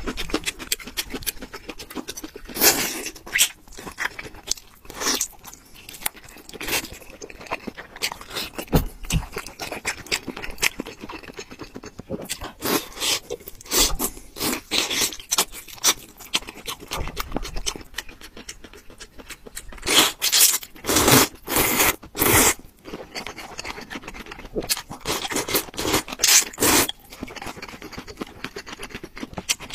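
Close-up eating sounds: noodles and spicy broth taken in from a spoon and chopsticks, wet chewing, and utensils scraping a ceramic bowl, in irregular bursts. The loudest bursts cluster about two-thirds of the way through.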